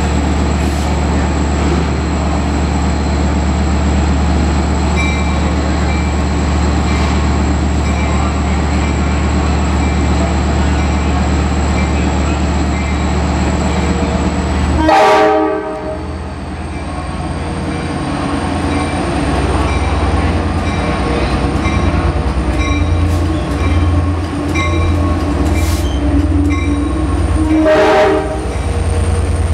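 EMD DE30AC diesel-electric locomotive idling with a steady low drone, then a short blast of its five-chime Nathan K5LA horn about halfway through. The engine then rumbles on as the train pulls out and the coaches roll past, with another short horn blast near the end.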